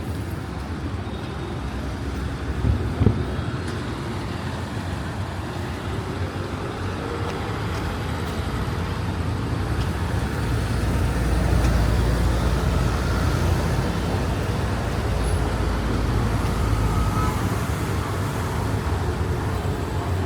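Street traffic noise with a steady background hum. A low vehicle rumble swells up and fades through the middle of the stretch. About three seconds in come two short thumps close together.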